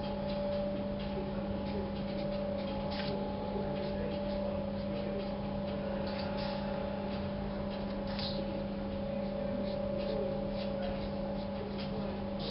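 A steady hum with a few short, faint scratching strokes of a pen on paper, about three, six and eight seconds in.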